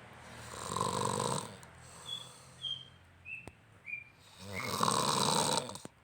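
Heavy snoring of an exhausted sleeper: two long loud snores, one about half a second in and another near the end. Between them comes a run of five short, high chirps that step down in pitch.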